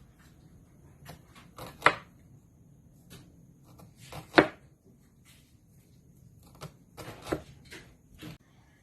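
Kitchen knife chopping onion on a cutting board: single knocks at uneven intervals rather than a steady rhythm, the loudest about halfway through.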